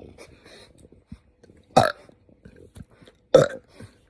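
A woman burping loudly twice, two short burps about a second and a half apart, from a gut upset by too much spicy food.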